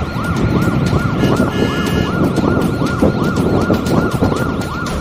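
A rapidly warbling siren tone, rising and falling about three times a second without a break, over a dense low rumble. A short ringing tone sounds briefly about one and a half seconds in.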